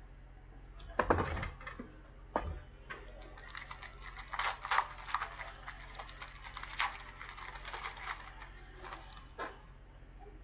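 Trading-card packaging and cards being handled: two thumps about a second and two and a half seconds in, then several seconds of crackling and rustling.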